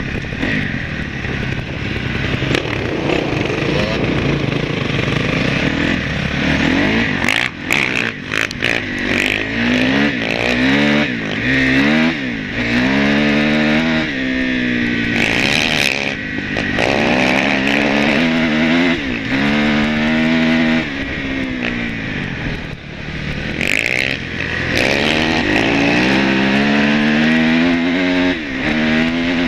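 Dirt bike engine heard from on board the riding bike, running hard on a dirt track. Its revs rise and fall repeatedly from about eight seconds in, as it accelerates and eases off.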